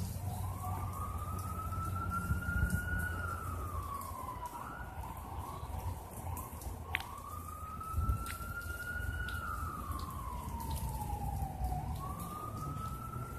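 Emergency vehicle siren on a slow wail, its pitch rising and falling in long sweeps of about five seconds each, heard down the street over a low rumble.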